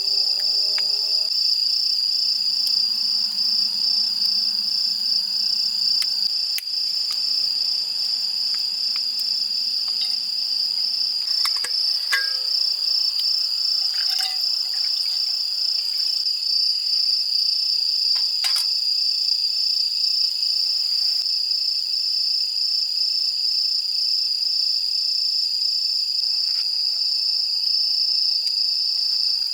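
Insects, cricket-like, chirping in a steady, finely pulsing high trill, with a few faint clicks or taps midway.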